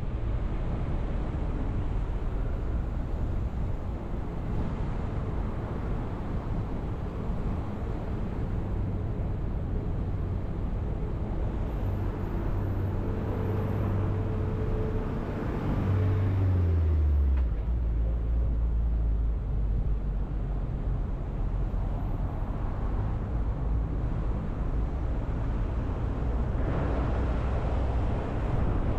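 A car driving: steady low engine and road rumble, with a low hum that drops in pitch about sixteen seconds in.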